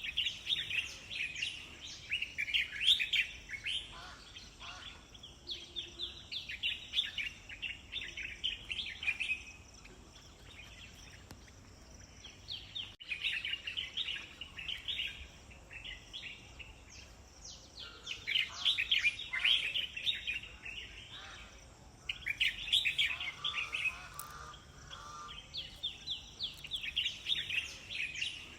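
Bird song: bouts of rapid, high chirping notes lasting a few seconds each, separated by short pauses.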